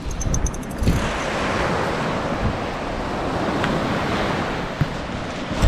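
Surf washing up a beach, with wind rushing over the microphone and a few brief knocks from the camera being jostled while carried at a run.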